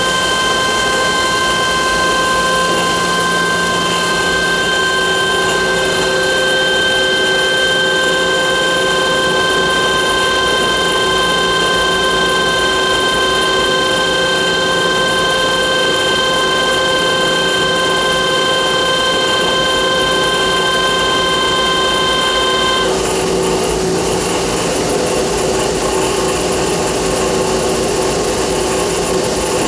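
Johnford SL650 CNC turning center running under power: a steady whine of several high tones over a constant mechanical hum. The whine cuts off suddenly about 23 seconds in, while the hum carries on.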